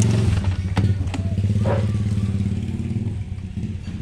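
A motorcycle engine running steadily at idle, a low even throb that fades over the last second, with a couple of light knocks about a second in.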